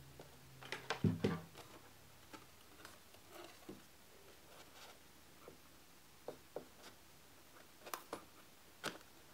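Handling noise at a workbench: a hot glue gun set down with a cluster of knocks about a second in, then scattered light clicks and taps as skewer bars of a foam-core cage are adjusted by hand, with a few sharper clicks near the end.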